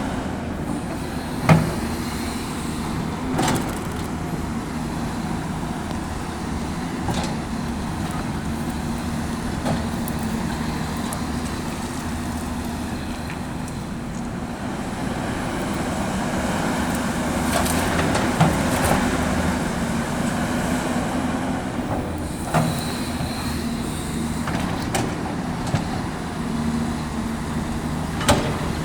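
Caterpillar 329D L hydraulic excavator working, its diesel engine running steadily under load. Sharp knocks and clatters come now and then, the loudest about a second and a half in.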